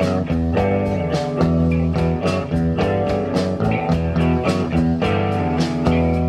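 Live rock band playing an instrumental passage: electric guitars and bass guitar over a drum kit with a steady beat, amplified through stage speakers.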